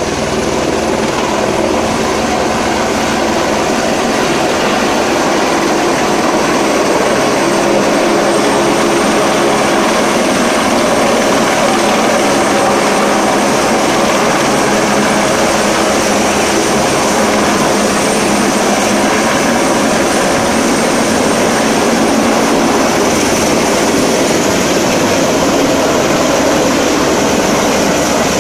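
Firefighting helicopter hovering low to fill a slung water bucket, then lifting away: loud, steady rotor and engine noise that grows a little in the first couple of seconds and then holds.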